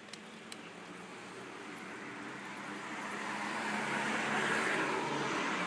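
A passing car, its noise swelling to a peak about four seconds in and then fading.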